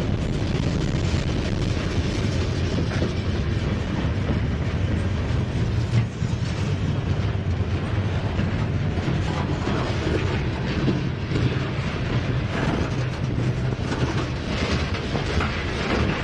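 Freight cars of a passing freight train (covered hoppers, gondolas and boxcars) rolling by close up: a steady low rumble of steel wheels on rail with clicking and clanking from the wheels and couplers, and one sharper knock about six seconds in.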